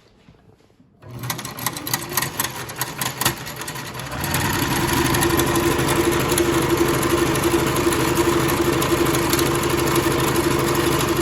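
Kenmore 385.81808 sewing machine, bobbin engaged, starting up about a second in and running slowly, then speeding up about four seconds in to run steadily and louder at a fast even rate.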